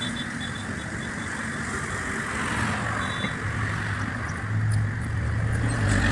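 A motor vehicle's engine running, a low steady hum that comes in about halfway through and grows louder, over general outdoor traffic noise.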